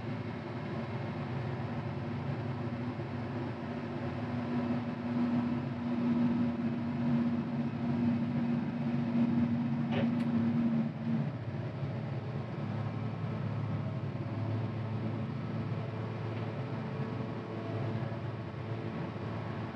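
Caterpillar 950GC wheel loader's diesel engine running steadily, heard from inside the cab as it drives. A droning tone in the engine sound swells for several seconds and drops away about halfway through, just after a single faint click.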